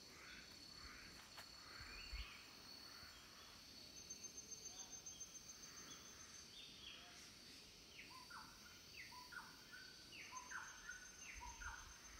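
Faint tropical rainforest ambience: insects holding steady high-pitched whines, one of them pulsing rapidly for a few seconds, while birds call in short repeated notes that come thicker in the second half. A low bump sounds about two seconds in.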